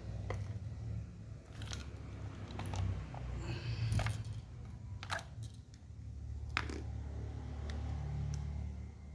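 Packaging being handled during an unboxing: scattered clicks and crackles over a steady low hum.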